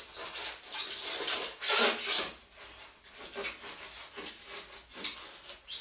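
Hands scraping and breaking away the wall of a white polystyrene (styrofoam) box: a series of irregular scraping, rasping strokes.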